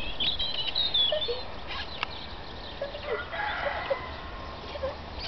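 Birds calling: high, wavering whistled notes in the first second or so, then short, lower chirps and clucking calls scattered through the rest.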